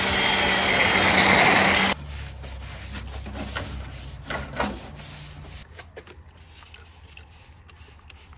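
Pressure washer spraying water and foam against a car's underbody sheet metal: a loud steady hiss over a motor hum, which cuts off suddenly about two seconds in. A brush then scrubs the wet metal over a low hum, followed by faint clicks and handling noises near the end.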